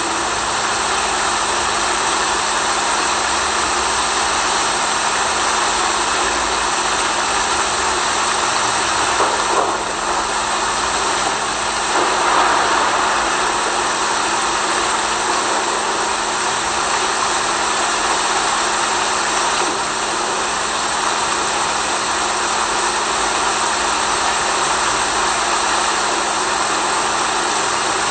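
Steady rain noise: an even, continuous hiss with a low steady hum running under it, swelling slightly twice midway.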